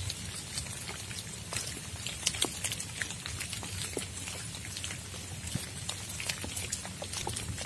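Steady rain, with irregular individual drops ticking on a surface close to the microphone.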